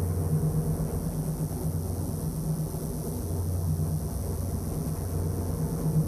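Sustained low electronic drone: a deep steady hum with a second, higher tone that flutters on and off above it, under a constant hiss. It keeps going with no beat or melody.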